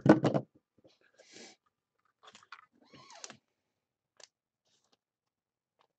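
Faint, scattered clicks and rustles of trading cards and packs being handled on a table, with a brief higher squeak about three seconds in.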